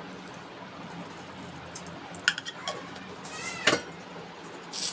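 Metal kitchenware clinking: a few sharp clinks of utensils and pots, about two seconds in, again near four seconds and just before the end.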